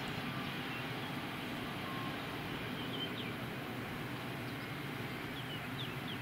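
Boeing 757's jet engines during the landing rollout just after touchdown: a steady roar. A few faint high chirps sound over it about halfway through and near the end.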